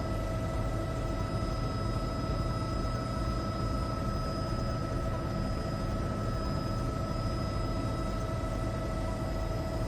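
A steady mechanical drone: a constant whine held over a low rumble, with no change in pitch or loudness.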